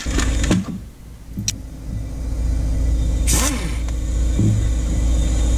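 A steady low rumble that builds over the first couple of seconds and then holds. A few light clicks and knocks and a short scrape sound over it.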